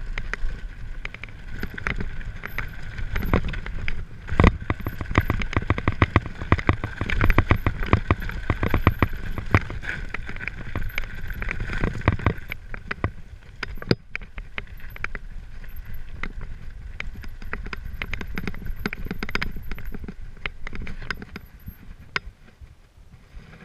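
Mountain bike riding fast down a loose, rocky gravel track. The tyres crunch over stones while the bike rattles with many sharp knocks, heard up close through the handlebar-mounted camera. It eases off near the end as the bike slows.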